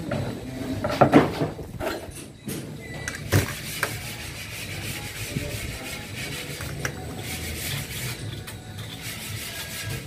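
Handling noise from an aluminium window frame being fitted onto a glass pane: a few sharp knocks and clicks in the first few seconds, then light rubbing and scraping of the metal rail, over a steady low hum.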